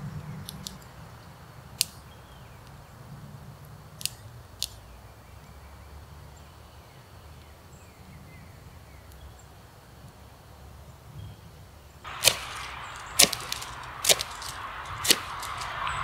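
Wood fire in a small camp stove giving a few sharp crackling pops over quiet woods. About twelve seconds in, a knife starts shaving a wooden stick, one sharp stroke about every second.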